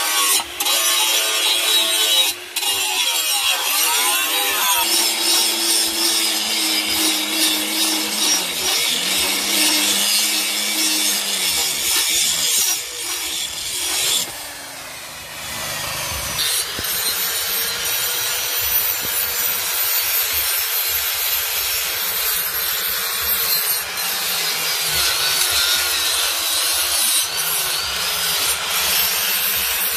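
Handheld electric angle grinder grinding the edges of steel cleaver blades to sharpen them: a continuous harsh rasp over the motor's whine, which drops in pitch as the disc is pressed into the steel. A short quieter lull comes about halfway through.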